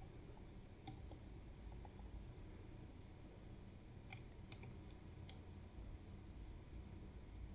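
Faint, scattered metallic clicks of a lock pick working the pins of a CISA AP3 pin-tumbler lock, a few at a time, over a steady faint high whine.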